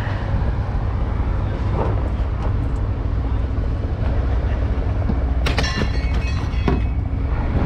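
Scrap steel clattering and clanging as it is thrown off a truck onto the scrap pile, a burst of metallic clanks with ringing about five and a half seconds in, over a steady low rumble of running machinery.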